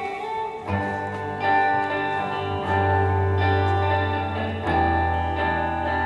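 Two electric guitars playing held chords, with deep low notes coming in just under a second in and the chord changing every two seconds or so.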